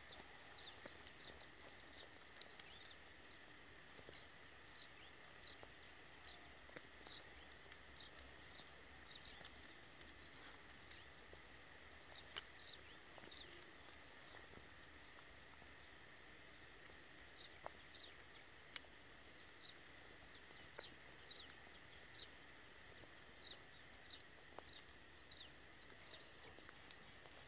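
Near silence: faint rural outdoor ambience, with a steady thin insect hum and short faint chirps and ticks scattered throughout.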